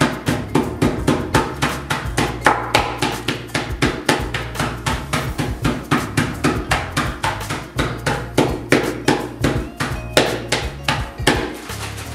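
Rolling pin beating Oreo cookies inside a plastic bag, a run of sharp blows about three a second, crushing them into crumbs.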